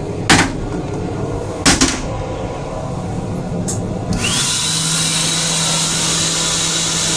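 Two sharp knocks about a second and a half apart as the toilet lid is handled, then the M8 restroom's hand dryer starts about four seconds in: a loud rush of air with a steady motor hum and a whine that rises as it spins up, over a low steady rumble.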